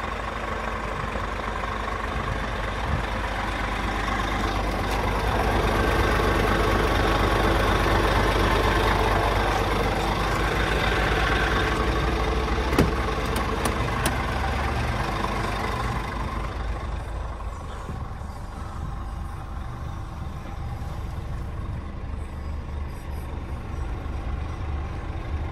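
Scania R490 truck's 13-litre inline-six diesel idling steadily, loudest for a stretch in the middle and quieter with less hiss in the last third. Two sharp clicks about halfway through.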